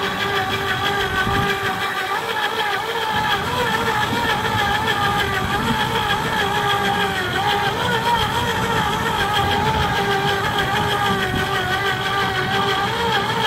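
Electric deep-drop fishing reel's motor whining steadily as it winds line up from deep water, its pitch wavering slightly under load. A low rumble of wind and boat noise lies beneath.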